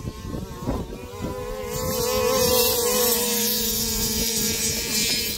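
Small two-stroke petrol engine of a large-scale RC car running at a fairly steady, slightly wavering pitch, growing louder about two seconds in.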